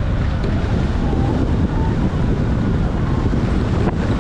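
Steady wind rumble on an action camera's microphone as a bike rides along a dirt and gravel track, mixed with the tyres running over the loose surface.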